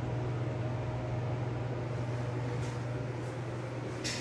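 Steady low hum of a running ventilation fan, with a brief sharp click near the end.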